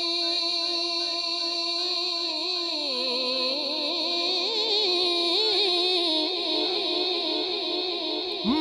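A naat singer holding one long, wavering note with vibrato, which dips in pitch about three seconds in and climbs back up, over a steady held tone beneath it.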